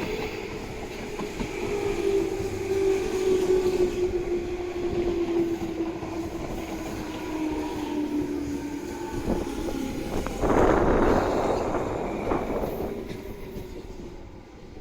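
Tobu 9000 series electric train slowing on arrival, with a steady tone that falls gradually in pitch as it brakes. About ten seconds in comes a short, loud burst of hissing noise, then a smaller one, and the train goes quieter.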